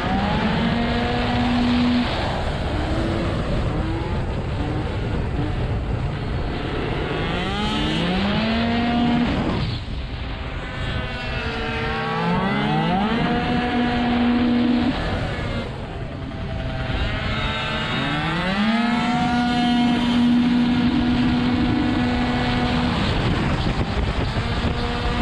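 Tuned two-stroke racing scooter engine under race load: the revs climb quickly and then hold at a steady high pitch as the automatic belt transmission takes up, easing off twice briefly for corners. Steady wind and road noise runs underneath.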